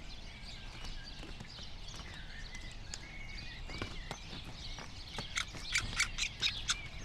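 Great spotted woodpecker pecking at a tree trunk: scattered sharp taps that come in a quick run about five to six seconds in, with short bird chirps between them.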